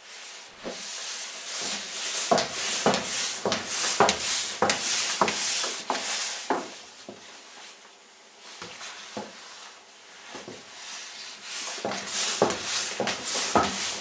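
A long shiny mackintosh swishing and rustling with each stride, along with footsteps, at about two steps a second. The swishing dies down around the middle and picks up again near the end.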